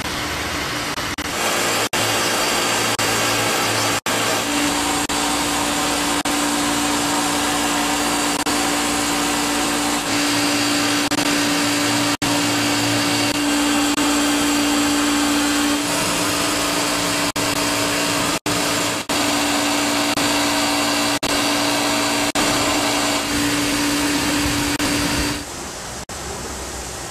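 Steam locomotive hissing steam in a loud, steady rush, with a steady tone sounding through most of it and a few brief gaps. It falls much quieter near the end.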